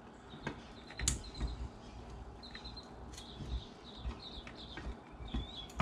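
Small hand tools clicking and tapping against an aluminium carburetor body as the venturi holder screws are checked for snugness, a sharp click about a second in the loudest. A bird chirps faintly in short high calls through the latter part.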